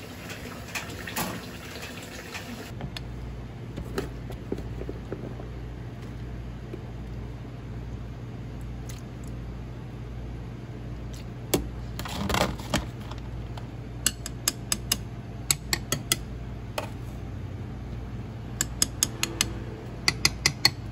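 A plastic ladle scoops cubed tofu out of a tub of water and drops it with zucchini and green onion into earthenware ttukbaegi bowls, making light watery sloshing. In the second half, runs of quick clacks of the ladle against the bowls sound over a steady low kitchen hum.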